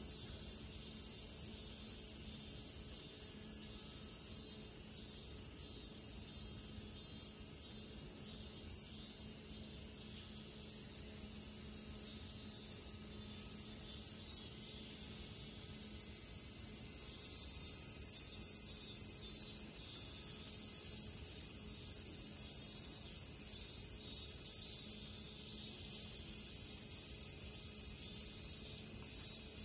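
Steady high-pitched chorus of insects, growing louder about halfway through.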